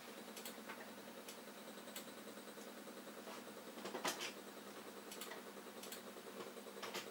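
Small stepper motor turning slowly under driver control: a faint, steady fast ticking hum from its stepping. Sharper clicks come every second or so, the loudest about four seconds in.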